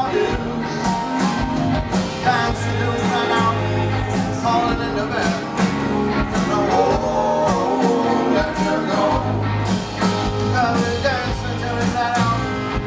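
Live band playing a song: a male lead vocal with harmony vocals over electric guitars and bass guitar, with a steady beat.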